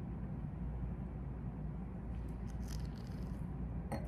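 Quiet room tone with a steady low hum, while a man sips red wine from a glass: faint soft sipping noises about two to three seconds in, and a small click near the end.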